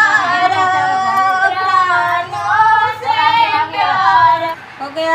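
Women singing a devotional puja song without instruments, in long gliding phrases with short breaks between them.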